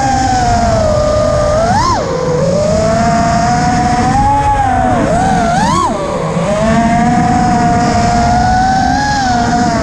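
FPV quadcopter's electric motors and propellers whining, the pitch swooping up and down with the throttle: sharply about two seconds in and twice around five to six seconds in. A low rushing noise runs underneath.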